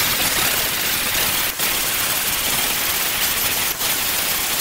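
Angle grinder with an abrasive disc grinding a steel block held in a vise: a loud, steady, hissing grind. It lets up for a moment twice, about a second and a half in and near the end.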